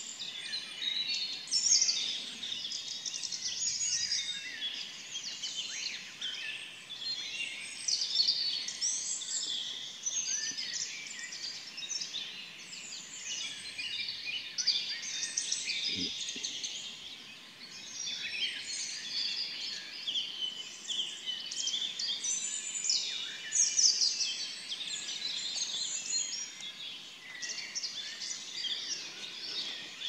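Dawn chorus in woodland: many songbirds singing at once, their chirps and trills overlapping without a break. A single short low knock about halfway through.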